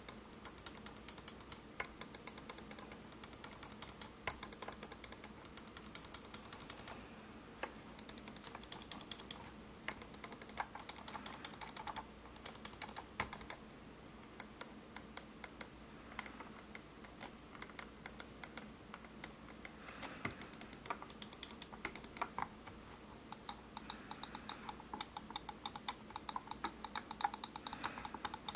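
ROCCAT Kone EMP gaming mouse buttons being clicked rapidly, in long runs of sharp clicks with short pauses between runs.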